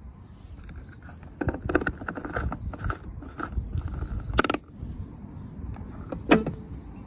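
Plastic fuel cap of a 2007 Kia Picanto being screwed back into the filler neck, a run of irregular clicks as it is turned and tightened, then the fuel door pushed shut with one sharp click near the end.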